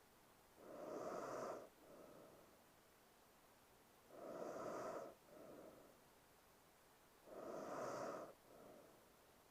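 A woman asleep, breathing slowly and heavily in her sleep: three faint breaths about three and a half seconds apart. Each is a louder breath of about a second, followed at once by a shorter, softer one.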